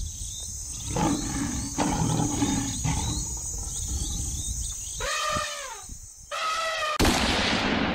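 A lion roaring in rough bursts, then an elephant trumpeting twice, then a single loud gunshot near the end that rings on as it fades.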